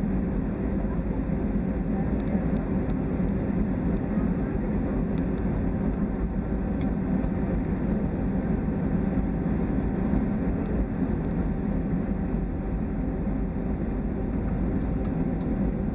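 Steady low rumble inside an airliner cabin as the plane taxis: engines at idle and the cabin air system, with a few faint clicks.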